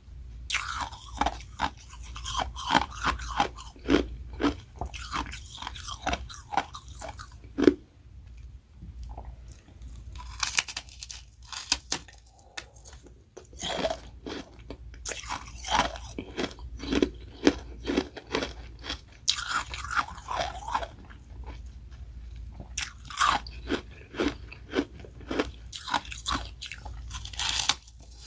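Close-miked crunching of ice being bitten and chewed: carbonated ice rounds and refrozen freezer-frost shaved ice cracking between the teeth in rapid bursts of sharp crunches, with a quieter lull in the middle.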